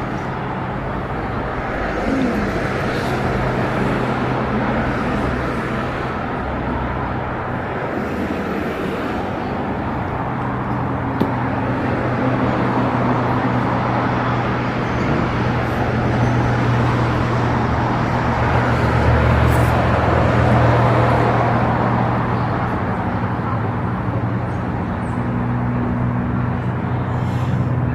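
Steady rumble and low drone of a suburban electric train, swelling to its loudest about two-thirds of the way through.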